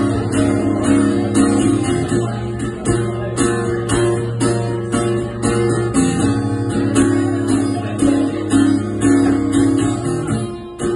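Acoustic guitar strummed in a steady rhythm, chords ringing between strokes, with no singing over it.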